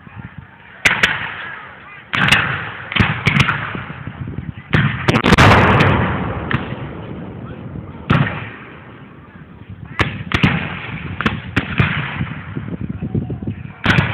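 Black-powder guns firing blank charges in a reenactment battle: about a dozen scattered, uneven shots, each trailing off in a rumble, with a thick cluster of shots about five seconds in.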